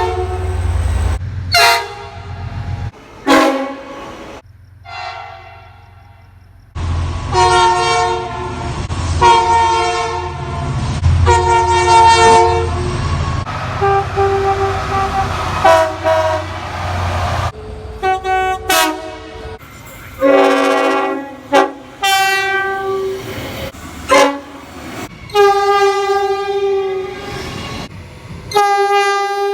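Train horns sounding in a rapid series of short cuts, each blast a chord of several steady tones, from brief toots to blasts a few seconds long. About a third of the way in come three blasts roughly two seconds apart over a low locomotive rumble.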